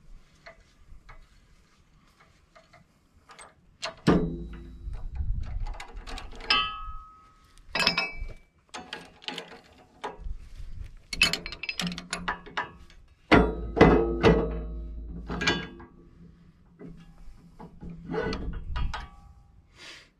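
Socket ratchet clicking as a bolt is worked out of a steel sheave hub. From about four seconds in come repeated heavy metal clunks in clusters, some with a short ringing note.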